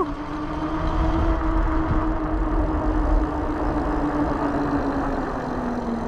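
Fat-tire e-bike's electric motor whining steadily under throttle while riding, its pitch rising slightly and then easing down, over a low rumble of wind and tyres on pavement.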